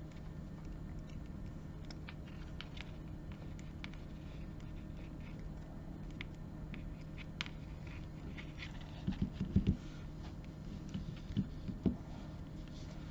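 Hands and stiff 3 mm leather cord rustling and rubbing as a snake knot is worked and pulled through, with faint scattered ticks over a steady low hum. A few soft knocks come about nine seconds in and again near the end as the folding knife is handled on the table.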